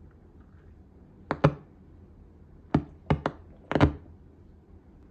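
Behringer Truth B2030A powered studio monitor popping and crackling by itself with nothing plugged in: sharp, irregular pops, some in quick pairs or threes, over a faint low hum. The pops are the sign of an internal fault in the speaker's powered electronics.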